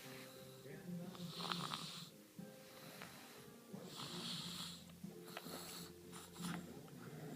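Snoring: slow, regular breaths, each with a hissing snore, recurring about every two and a half seconds.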